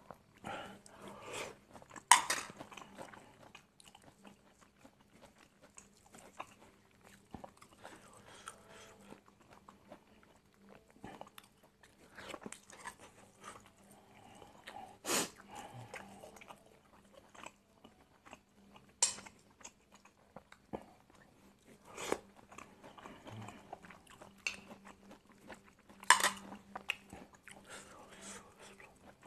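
Close-up chewing and eating of stir-fried angled luffa with egg, with about five sharp clicks spread through, the loudest about two seconds in and near the end.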